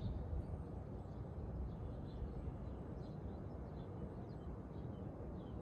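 Outdoor ambience: scattered faint short chirps of small birds over a steady low rumble.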